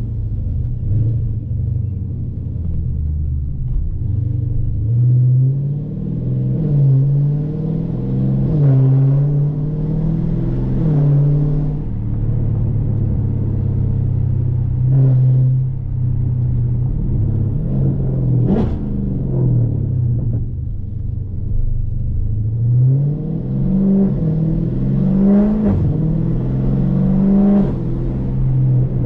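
2020 Dodge Challenger Scat Pack's 392 (6.4-litre) HEMI V8 running under way, rising in pitch through two spells of acceleration with gear changes, about 6 s in and again about 23 s in, and a brief rev near the middle.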